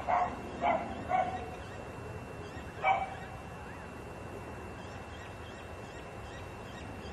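An animal barking: four short barks within the first three seconds, then only a steady background noise.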